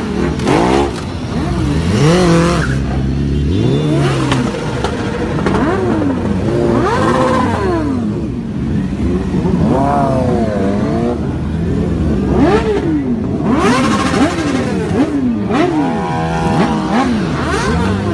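Sport motorcycle engines being revved again and again in short blips, each one a quick rise and fall in pitch, some overlapping as more than one bike revs at once.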